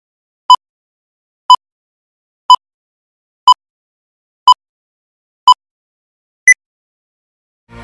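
Film-leader countdown beeps: seven short electronic beeps one a second, the first six at the same pitch and the last one higher. Music starts just at the end.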